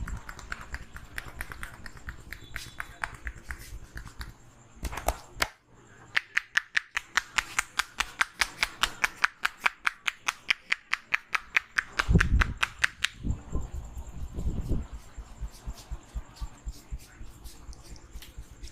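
Percussive head massage: a fast, even run of sharp taps, about six a second, lasting several seconds in the middle, with scattered taps before and after and a few dull thumps near the end.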